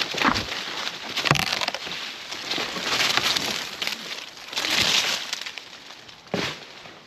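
Leaves and small branches of a walnut tree rustling and crackling in irregular swells as a climber moves through the canopy, with a few sharp knocks.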